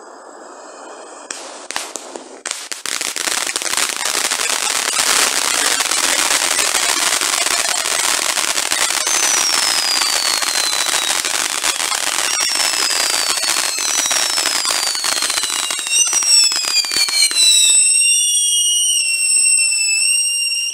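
Firework fountains hissing, then a few sharp cracks followed by a dense, continuous crackling of crackling-effect fireworks. From about nine seconds in, high whistles fall in pitch over the crackle, growing louder and more numerous near the end, before the sound cuts off suddenly.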